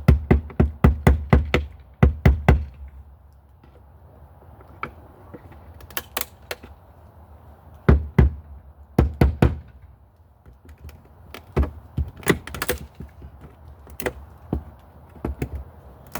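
Sharp knocks and thunks of a caulked-on outdoor light fixture being struck to break it off the wall: a quick run of about a dozen hits in the first two and a half seconds, then scattered single knocks and pairs.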